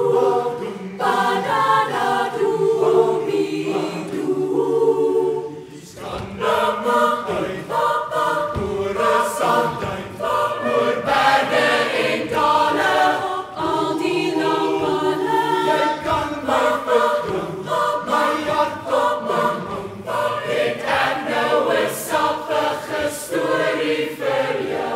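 A large mixed choir singing a lively song in harmony, with a few sharp percussive hits along the way.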